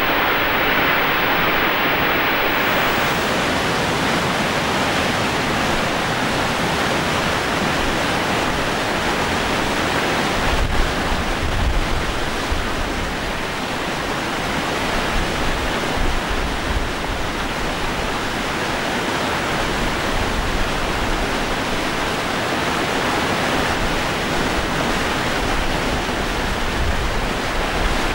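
Whitewater of the Merced River rushing at Nevada Fall and through the granite cascades at its top: a steady, loud rush of water. It turns hissier a few seconds in, and a deeper rumble joins from about ten seconds on.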